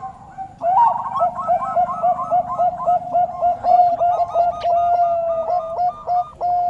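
Bangkok turtledove cooing in a rapid, even string of short notes, about five a second, ending in one held note near the end.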